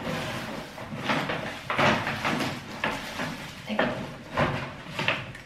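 Shopping bag rustling and crinkling irregularly as purchases are pulled out of it by hand, with several sharper crackles and knocks of the items being handled.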